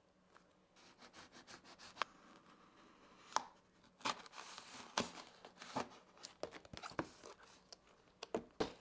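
A package being opened: packaging tearing and crinkling, with scattered sharp clicks and taps.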